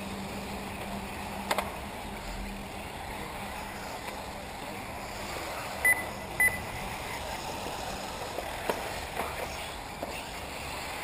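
Electric 1/8-scale RC off-road buggies running on a dirt track, a steady background of motors and tyres with a couple of faint knocks. About halfway through, two short high electronic beeps about half a second apart stand out as the loudest sounds.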